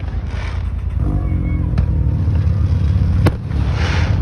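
A car engine running close by, a steady low rumble. Two sharp firework cracks come about two and three seconds in.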